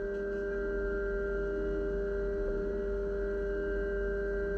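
A Haas VF-2SS CNC mill's end mill cutting a 6061 aluminium block under flood coolant, giving a steady ringing tone with several fainter tones above it and no change in pitch.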